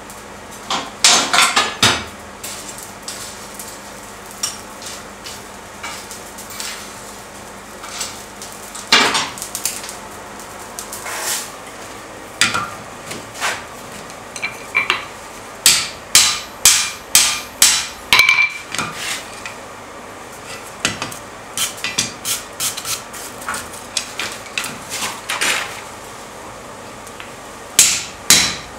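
Hand hammer striking red-hot steel on an anvil, each blow sharp with a short metallic ring. A few scattered strikes and clinks come first, then quick runs of steady blows in the second half as the hot end of a holdfast bar, set in tongs in the anvil's hole, is bent over.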